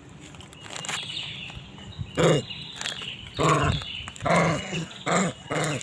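A series of about five loud barks, roughly one a second, starting about two seconds in, each falling in pitch.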